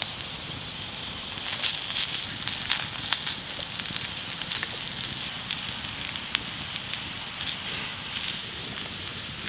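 Wood campfire crackling, with a steady sizzle of cubed potatoes frying in suet in a pan lid over the fire. Sharp crackle pops come throughout.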